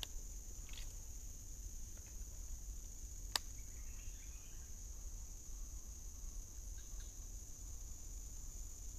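Steady high-pitched drone of forest insects, with a low rumble underneath. A single sharp click about three and a half seconds in.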